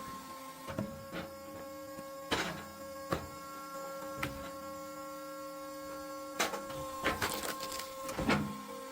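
Hydraulic log splitter's motor and pump running with a steady hum, with scattered knocks and clatters from the machine and the wood.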